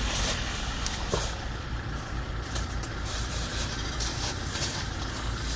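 Vehicle engine running hard under load, with a steady hiss over it and a short click about a second in.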